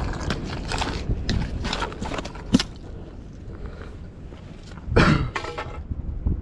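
Scattered clicks, scuffs and knocks of a caught snook being handled on rocks and of footsteps over stone, with a louder rustling burst about five seconds in. A low wind rumble on the microphone runs underneath.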